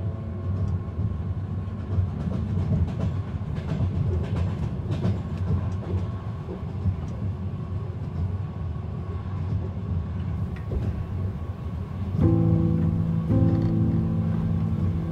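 Steady low rumble of a moving train heard from inside a passenger carriage, with light clatter of the wheels on the rails. The last notes of a piano piece fade out in the first second, and a new piece of music comes in about three seconds before the end.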